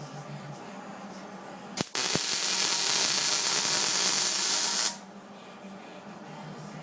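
A welding arc is struck with a click about two seconds in, then hisses and crackles steadily for about three seconds before cutting off suddenly.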